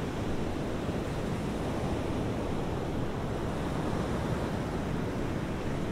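Steady rush of ocean surf washing on a beach, mixed with wind on the microphone.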